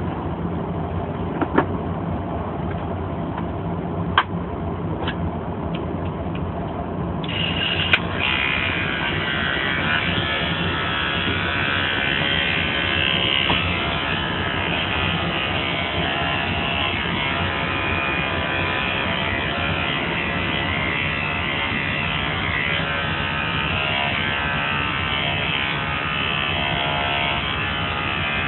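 Electric dog grooming clippers switch on about seven seconds in and run with a steady buzz as they are worked through the dog's coat. Before that there is only a steady low hum and a few sharp clicks.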